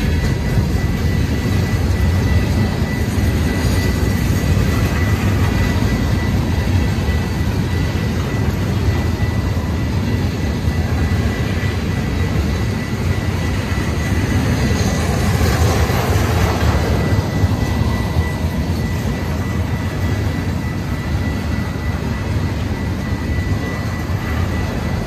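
A mixed freight train's cars, gondolas and tank cars, rolling past: a steady, loud low rumble of wheels on the rails, with a thin steady high tone throughout. The noise grows briefly louder and harsher about two-thirds of the way through.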